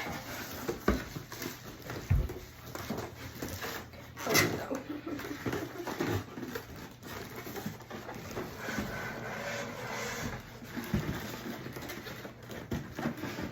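Cardboard box and packing scraping, rustling and knocking as a mini fridge is worked out of its tight box, with scattered thumps and one sharp knock about four seconds in.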